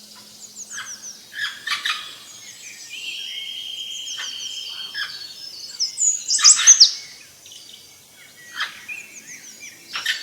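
Several wild birds calling and singing in a forest chorus of quick chirps and short falling whistles, loudest about six to seven seconds in. A steady high buzzing trill runs for a couple of seconds near the middle.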